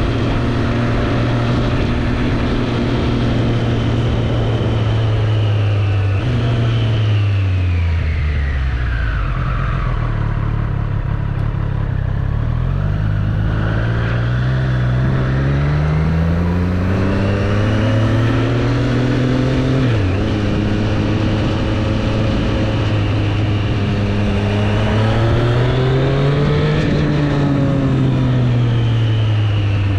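2024 Triumph Street Triple 765 RS's 765 cc inline-three engine under way: it holds steady revs, the revs fall away about six to ten seconds in, then climb in several rising pulls with a sudden drop in revs at a gear change about twenty seconds in, and rise and fall once more near the end.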